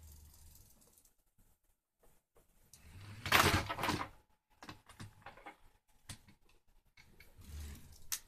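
LEGO Technic 42010 off-road racer pushed by hand across a wooden desk: its rubber tyres roll on the wood and the plastic parts rattle. The loudest stretch is a rush about three seconds in, followed by scattered clicks and one sharp click near the end.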